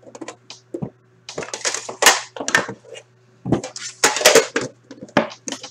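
Metal tin of an Upper Deck The Cup hockey card box being opened and handled: an uneven run of scrapes, clicks and rustles as the inner box is slid out of the tin, loudest about two seconds in and again around four seconds.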